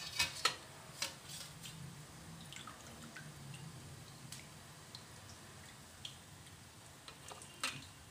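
A wire spider strainer scooping soaked fried fritters out of water in a steel bowl. There are a few light metal clinks in the first second, then faint drips, squishes and scattered small ticks as the wet fritters are lifted and dropped into yogurt.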